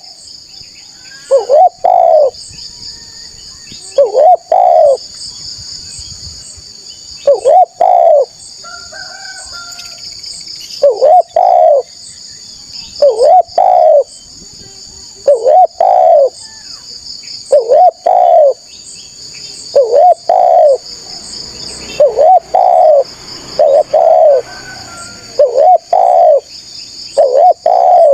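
Spotted dove cooing loudly and repeatedly, a phrase of two or three hooked notes about every two seconds, over a steady high-pitched buzz.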